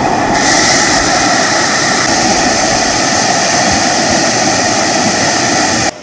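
River rapids rushing over boulders close to the microphone: a loud, steady rush of water that gains more hiss about half a second in and cuts off suddenly near the end.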